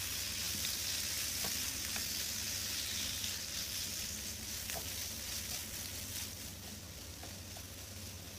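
Cubed liver sizzling steadily in hot oil in a nonstick frying pan, stirred with a silicone spatula, with a few faint clicks through the sizzle. The sizzle eases a little after about six seconds.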